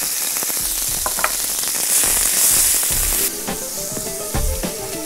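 Cubes of lean pork frying in hot olive oil in a steel paella pan: a dense sizzle with crackles as the meat browns. About three seconds in, the sizzle drops lower as background music comes in.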